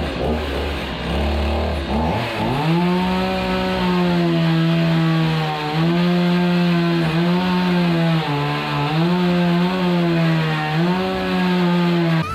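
Chainsaw that runs low for about two seconds, then revs up and runs at high speed, its pitch dipping briefly again and again as it works; it cuts off suddenly at the end.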